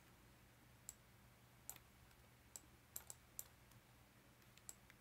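Faint computer mouse clicks, about seven short clicks spaced unevenly, over a faint steady low hum.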